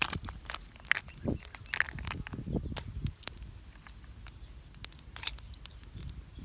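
Snail shells being set on charcoal embers among stones: irregular small clicks and crackles, with a few soft knocks in the first three seconds.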